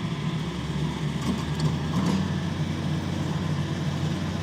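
A vehicle engine running steadily with a low hum, with a couple of faint knocks.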